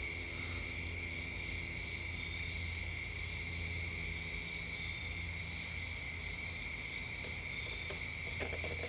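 Steady background room tone: a low hum with an even, high-pitched tone held above it, and a few faint taps near the end.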